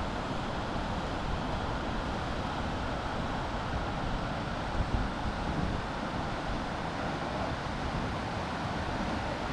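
Steady rush of whitewater river rapids, with wind buffeting the microphone.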